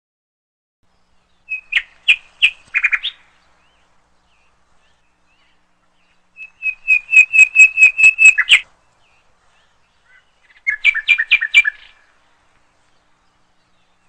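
Small songbird singing three short phrases, each a quick run of repeated high chirping notes, with pauses of a few seconds between them.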